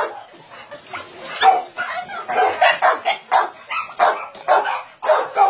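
Several dogs barking over one another in a steady string of short barks, with a few higher yips among them.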